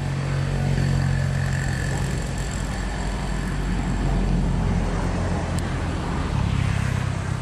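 Low, steady drone of a motor vehicle engine.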